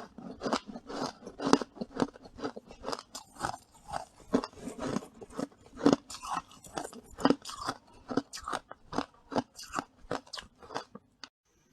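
Freezer frost being chewed close to the microphone: a quick, irregular run of crisp crunches, several a second, stopping shortly before the end.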